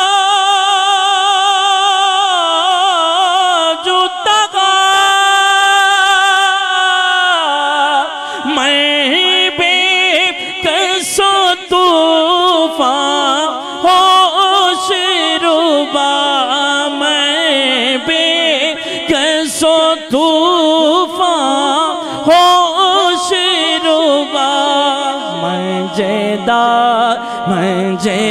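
Man singing a devotional naat into a microphone: a long held note with wide vibrato for about the first seven seconds, then winding, ornamented runs.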